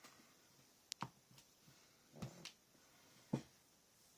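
A few light taps and knocks of a rubber stamp being pressed and set down on paper on a craft table, about five in all with the strongest near the end, over quiet room tone.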